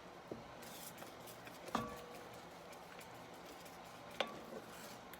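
Spoon stirring sausage gravy in a pan, striking the pan a few times with short ringing metal clinks, over a faint steady hiss from the stove.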